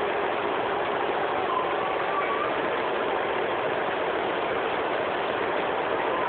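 A small electric motor running steadily, with a rush of air and a faint hum.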